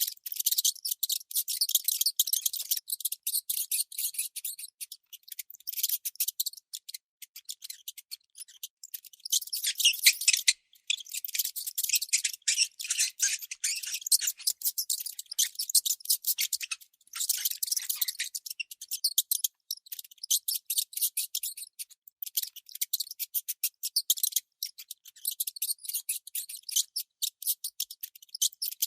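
Baby mouse squeaking: rapid, high-pitched chirps in quick runs broken by brief pauses, the squeaks coming thickest around the middle.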